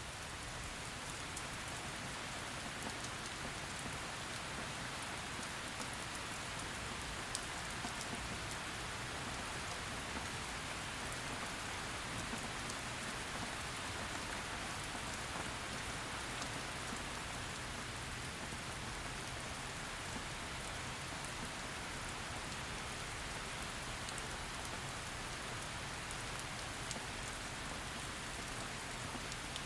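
Heavy rain falling steadily on a surface, an even hiss of many drops with fine patters throughout.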